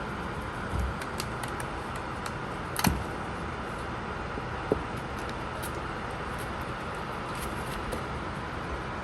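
Steady background hiss with a few scattered knocks and clicks of kittens playing with a ball. The loudest knock comes about three seconds in, and a sharp click follows near five seconds.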